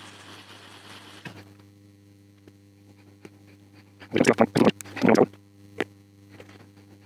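Hands and a plastic opening tool working on the small plastic-and-glass case of a RØDE Wireless GO II transmitter. A faint hiss stops about a second in, then two short rough scraping bursts come around four and five seconds in, followed by a small click, all over a steady low electrical hum.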